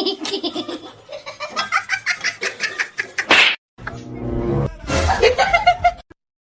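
Laughter in quick repeated bursts for about three seconds, then a short sharp noise and a stretch of music.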